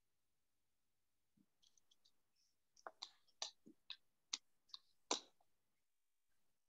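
A quick run of about eight sharp clicks and taps over near silence, the last one the loudest.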